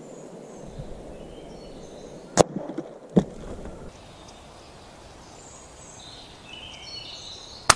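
Two sharp clicks a little under a second apart, then near the end a much louder sharp crack with a short ringing tail: a .177 sub-12 ft-lb regulated PCP air rifle shot. Faint bird chirps sound in between.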